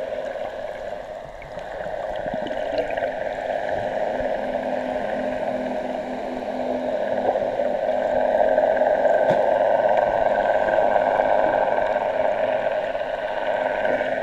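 A boat's outboard motor and propeller heard underwater: a steady hum over a rush of churning water and bubbles, growing louder about seven seconds in.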